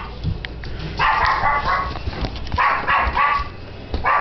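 A dog barking several times in short, separate barks.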